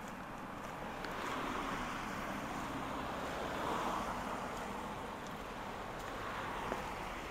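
Traffic on a wet, slushy street: car tyres hissing on the melting snow, swelling and fading slowly as vehicles pass.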